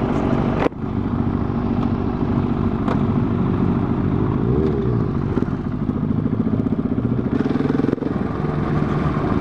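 Single-cylinder engine of a KTM 690 SMC R motorcycle running at low revs as it rolls along, the revs rising a little about two thirds of the way through.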